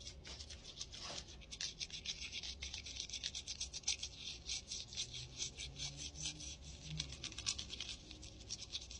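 Toothbrush scrubbing a gold grill covered in toothpaste foam, with rapid up-and-down strokes making a soft scratchy hiss.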